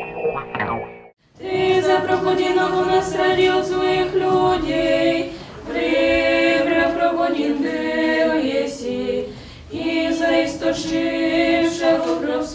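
Three-girl vocal ensemble singing a cappella in close harmony, long held notes in phrases with short breaks between them. The last second of a guitar jingle cuts off just before the singing starts.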